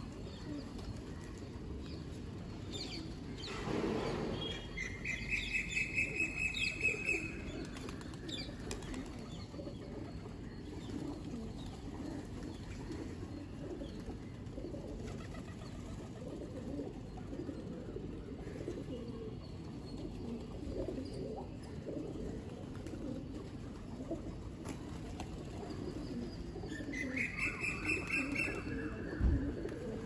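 Flock of feral rock pigeons feeding, with wings flapping as birds take off and land, and low cooing. Twice a different small bird gives a rapid run of high chirps, once early and once near the end.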